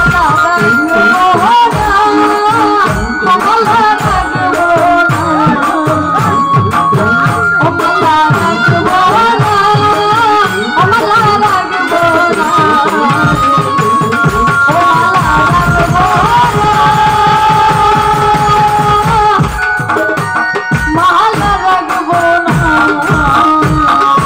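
A woman singing a Bengali folk song into a microphone, amplified through a PA, over a steady beat from a hand-played barrel drum and small percussion.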